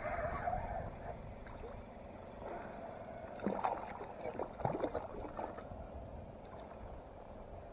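Hooked jack crevalle splashing at the water's surface beside a kayak as it is reeled in, a quick cluster of sharp splashes about three and a half to five seconds in, over a steady low rumble.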